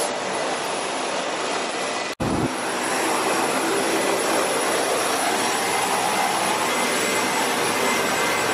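Steady jet turbine roar of aircraft on an airport ramp, with a faint high whine, cut off briefly about two seconds in and resuming just as steady.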